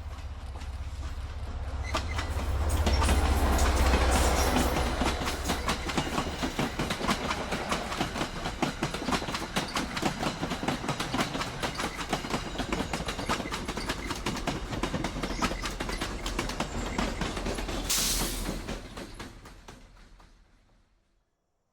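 MBTA commuter train passing at speed. A deep rumble swells and peaks a few seconds in as the head end goes by, then a long, fast clickety-clack of wheels over rail joints follows as the cars pass. A short burst of noise comes near the end before the sound fades away.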